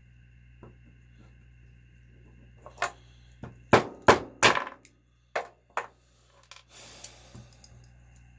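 Sharp metal-on-metal taps, about six strikes in three seconds, the loudest in the middle, followed by a brief scrape: typical of tapping a stuck bearing loose from a small nitro engine's part without a puller.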